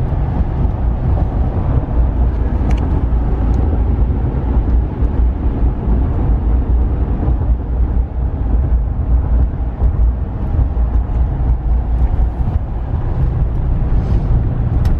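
2015 Ram 1500 pickup with the 5.7 L V8, driving steadily on the road, heard from inside the cab: a steady low rumble of tyre, wind and engine noise.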